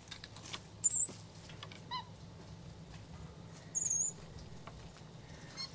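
Capuchin monkeys giving a few short, very high-pitched squeaks: one about a second in, a brief chirp near two seconds, a longer squeak around four seconds and a faint one near the end.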